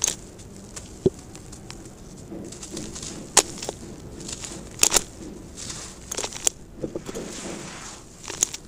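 Lumps of dry sand-cement mix crushed and crumbled by hand: gritty rustling and trickling as the crumbs fall onto loose sand, with sharp clicks several times as pieces break.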